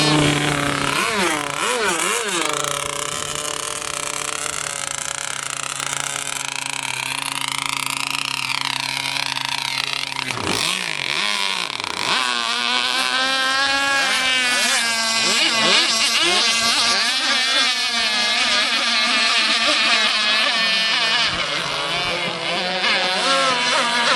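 Radio-controlled model racing boats' motors running at speed, their high-pitched whine rising and falling as the boats speed up, turn and pass. About ten seconds in, the pitch drops sharply as one boat goes by close.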